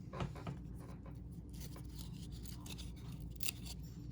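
Faint scraping and rustling of baseball cards being slid and flipped by hand, over a low steady hum.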